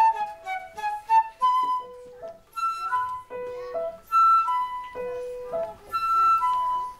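Concert flute playing a simple melody of held notes in short phrases, with brief pauses between them.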